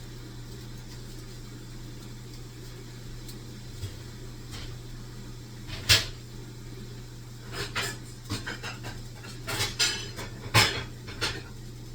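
Kitchen handling sounds: a string of sharp knocks and clacks of utensils, cupboard and cookware being moved, starting about halfway through, over a steady low hum.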